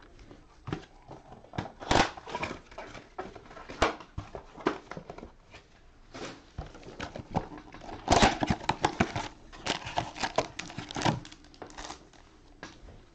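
Cardboard trading-card boxes and foil card packs being handled with gloved hands as the boxes are emptied: scattered taps, scrapes and crinkles, busiest about eight to eleven seconds in.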